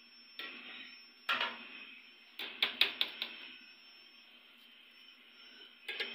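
Falsa berries and a steel mesh strainer clattering into and against a steel blender jar as the next batch is loaded for grinding: a series of sharp clicks and knocks, with a quick cluster of four or five about two and a half seconds in.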